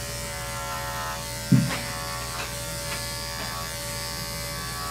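Andis 5-speed electric dog clipper running with a steady buzz as it shaves through a thick double coat. A short thump about a second and a half in.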